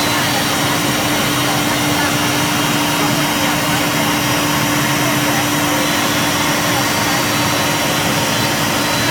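CNC wood router running, its spindle giving a steady whine over even machining noise with no change in pitch or level.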